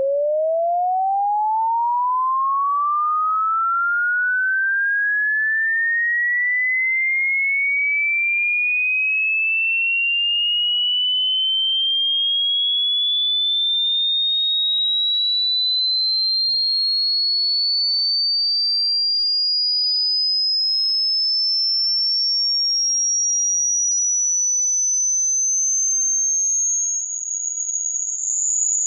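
Hearing-test tone: a single pure sine tone gliding steadily upward in pitch, from a mid tone to a very high whine, at an even level. Near the end it wavers and dips slightly in loudness.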